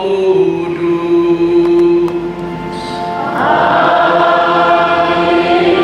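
Sung liturgical chant at Mass: a single voice holds a long note, then about three seconds in a congregation joins in a sung response, many voices together.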